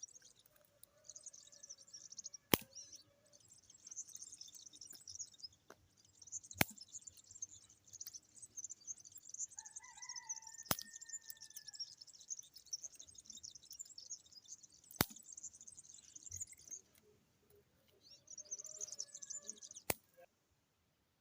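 Small birds chirping in a continuous high-pitched chorus, with a few lower, drawn-out calls mixed in. Five sharp clicks come about four seconds apart.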